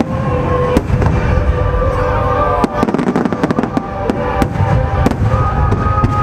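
Aerial fireworks bursting in quick succession: many sharp bangs and crackles over a continuous low rumble.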